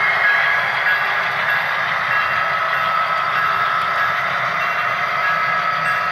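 HO scale Norfolk Southern model diesel locomotives passing, their diesel engine sound running steadily with a steady high whine over it, as covered hopper cars roll by behind them.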